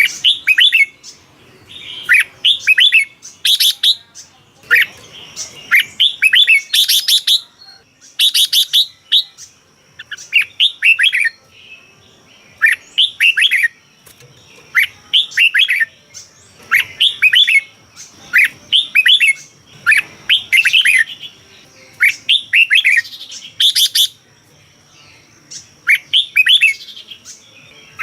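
Red-whiskered bulbul singing: short, bright, warbled phrases repeated every second or two, with a faint steady high tone underneath from about a third of the way in.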